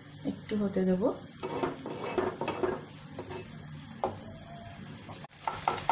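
Eggs frying in hot oil in a nonstick pan, sizzling steadily while a spatula stirs and scrapes through them to scramble them. There is a run of scraping strokes in the first second and a half and more about four seconds in, and the sound cuts out briefly near the end.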